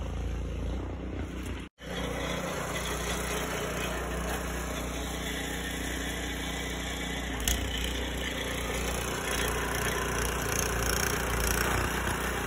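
An engine running steadily, with a brief dropout about two seconds in.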